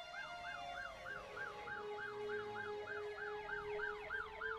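Emergency vehicle siren in a fast yelp, each sweep rising and falling about four times a second, over a few steady held tones.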